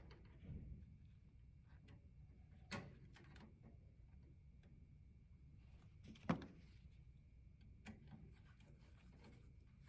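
Near silence with a few faint clicks and taps from handling a light switch and its wires, the sharpest about six seconds in.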